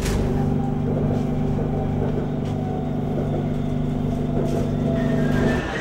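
Elevated metro train running, heard from inside the carriage: a steady low hum from its drive with running noise beneath, cutting off near the end.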